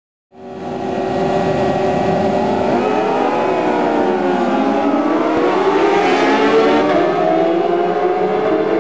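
A pack of 750 Superbike road-racing motorcycles at speed, many engines overlapping at high revs, their pitches rising and falling as the riders accelerate and shift. The sound fades in quickly in the first second.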